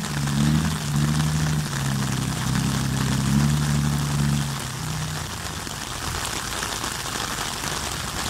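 Dump truck's diesel engine running with its pitch shifting up and down, then dropping away about four and a half seconds in, leaving a steady hiss.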